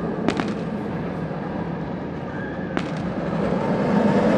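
Steel inverted roller coaster train rumbling along its track, growing louder near the end. Two sharp cracks cut through, one just after the start and one about three seconds in.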